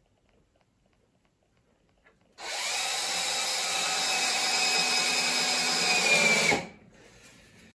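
Cordless drill-driver driving a greased 60 mm screw into a timber strut: the motor starts about two seconds in, runs steadily for about four seconds, drops slightly in pitch near the end and cuts off suddenly.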